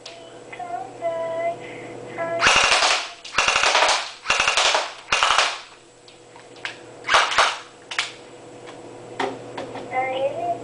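TSD M93R electric airsoft pistol firing five short full-auto bursts, each a rapid rattle of shots about half a second long, with a few single clicks between them.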